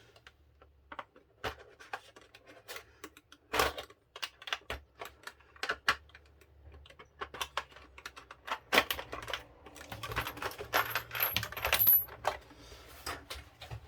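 Irregular clicks, taps and light rattles of small plastic and metal RC kit parts (covers and springs in a plastic blister pack) being handled on a workbench, busiest in the second half, with a few thin high squeaks about ten seconds in.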